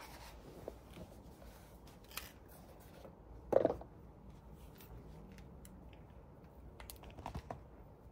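Quiet handling noises: a few small clicks and taps, with one louder knock about three and a half seconds in and a short cluster of taps near the end.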